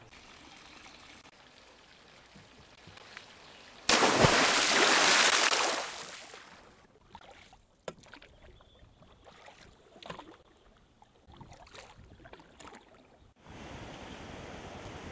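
Outdoor water sounds: a sudden loud rushing noise lasting about two seconds, then scattered canoe paddle strokes and splashes, then the steady rush of a forest stream starting near the end.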